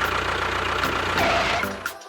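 A steady engine running sound with music over it, fading out near the end.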